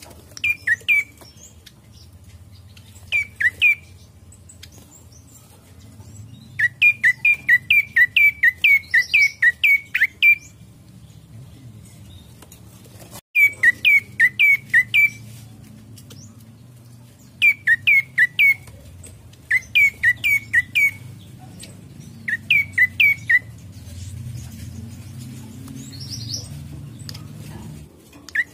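A prenjak coki, a tailorbird, calling: short, sharp chip notes repeated in quick bursts of three to six, with one longer run of about a dozen notes a quarter of the way in.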